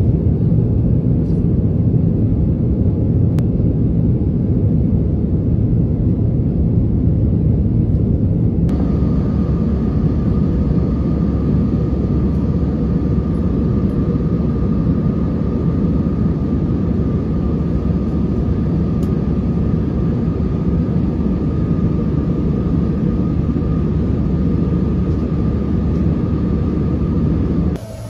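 Steady low roar of a jet airliner's engines and rushing air, heard from inside the cabin at a window seat. About a third of the way in the sound changes abruptly and a steady whine joins the rumble.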